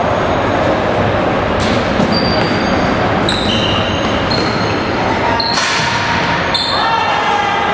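Indoor ball-game sounds in a reverberant sports hall: sharp thuds of a tchoukball striking and being caught, about five in all, mixed with short high squeaks of shoes on the court floor, over a steady hum of hall noise.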